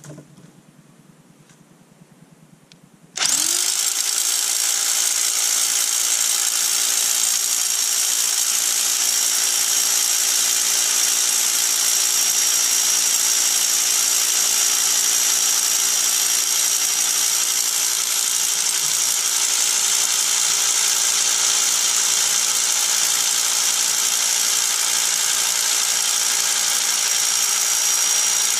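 Corded electric drill with a 12 mm masonry bit boring into stone. It starts suddenly about three seconds in, its pitch rising briefly as the motor spins up, then runs steadily.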